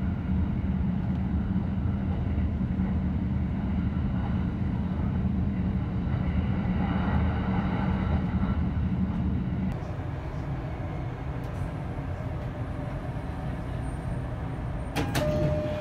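Inside a Joban Line E531-series commuter train running and slowing into a station: a steady low rumble and hum that drops away about ten seconds in as the train comes to a stop, leaving a quieter steady hum. A sharp click comes near the end.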